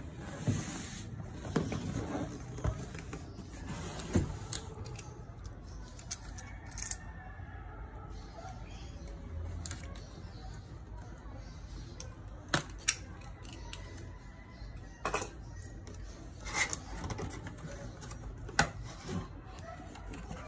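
A cardboard laptop box being handled and opened by hand: scattered taps, scrapes and rubbing of the cardboard, with a few sharp knocks in the second half.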